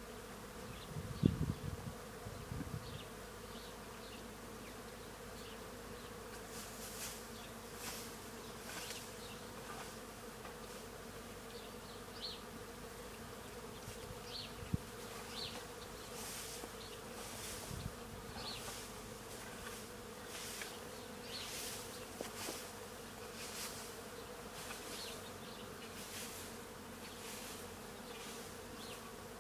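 Many bees buzzing steadily as they forage on tree blossoms, a continuous hum. A few low thumps come about one to three seconds in.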